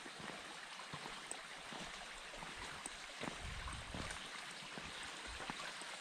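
Shallow stream running over flat bedrock, a steady wash of water. A few soft low thumps come about halfway through.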